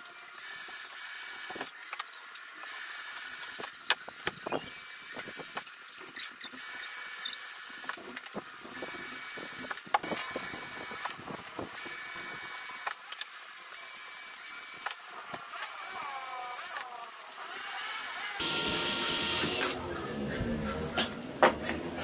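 Bosch cordless drill boring holes through thin clear plastic sheet, run in a series of short bursts of about a second each with a steady high-pitched motor whine. A louder burst comes near the end, then a few sharp knocks.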